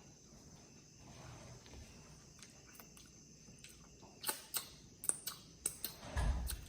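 Close-up eating sounds from a seafood boil: after a quiet stretch, a quick run of wet clicks and mouth smacks from chewing, with a short low thud near the end.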